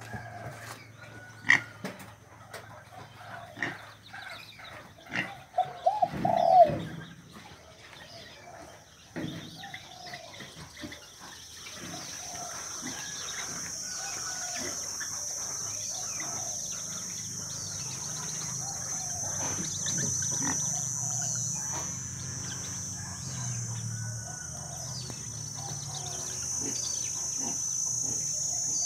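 Purple swamphens calling, with short calls and scattered taps and a louder burst of calls about six seconds in. From about twelve seconds in, a steady high-pitched hiss runs under sparser calls.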